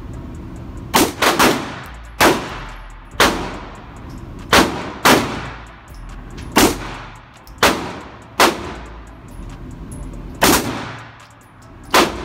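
Handgun fired in slow single shots at an indoor range: about eleven shots spaced roughly a second apart, two of them close together about a second in, each followed by a short echoing tail.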